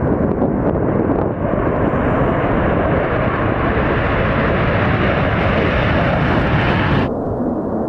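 F-15E Strike Eagle's twin jet engines at takeoff power, a loud, steady roar that grows brighter as the jet rolls and lifts off. About seven seconds in it cuts off suddenly, giving way to a quieter, duller jet rumble.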